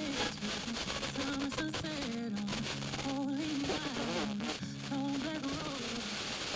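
Distant FM broadcast station on 90.1 MHz heard through a meteor-train reflection: music with singing comes through over steady radio hiss, then sinks back into static near the end.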